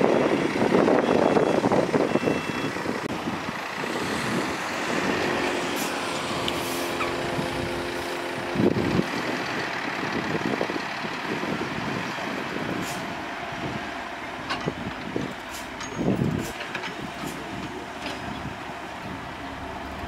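Heavy diesel dump truck running while its bed tips a load of soil. It begins with a loud rush of engine and sliding soil, settles into a steady hum with a clear pitch, and gives a couple of knocks partway through.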